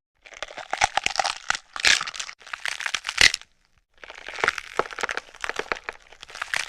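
A homemade sound effect, made as a fictional peregrine falcon sound and not a real bird call: dense crackling and crinkling in two spells of about three seconds each, with a short break between.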